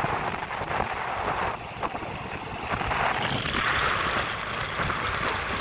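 Rumble of a passenger train coach running along the track, heard from an open window with wind buffeting the microphone. The hiss grows stronger about halfway through.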